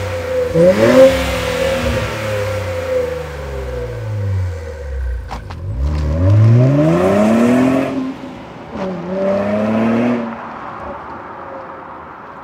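Exhaust of a 2023+ Nissan Z (RZ34) twin-turbo V6 through an A'PEXi RS Evo Extreme cat-back muffler with titanium tips. First one quick rev that rises and falls back, with a couple of sharp clicks. Then the car pulls away hard: the pitch climbs, drops once for an upshift, climbs again and fades out.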